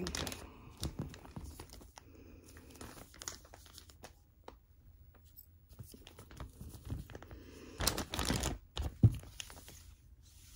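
Clear plastic mushroom grow bag of colonized substrate crinkling as it is picked up and turned in the hands, with a louder burst of crinkling about eight seconds in.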